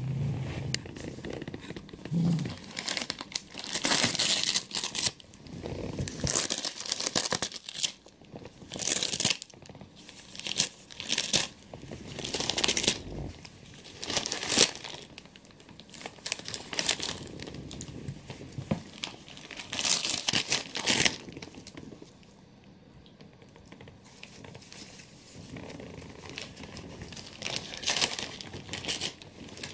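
A poodle tearing and crumpling shiny gold gift-wrapping paper with its mouth: irregular bursts of rustling and ripping paper, with a quieter lull about two-thirds of the way through.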